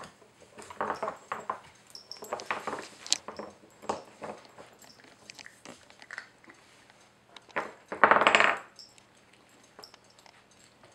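Wooden pegs and sliding blocks of a dog puzzle toy knocking and clacking in irregular bursts as a puppy pushes them with its nose and paws. About eight seconds in comes a louder, longer rattle of rapid knocks.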